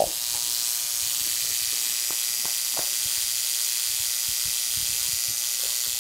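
Turbojet ignition system's spark plugs arcing continuously, a steady buzzing hiss, with a few faint ticks about two to three seconds in.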